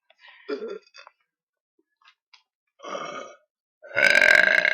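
A person burping: a short burp sound or two, then a long, loud burp starting about four seconds in.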